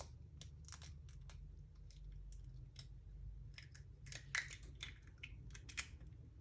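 A freshly cracked egg frying in a pan of hot oil, crackling and popping irregularly, with one louder pop a little past halfway.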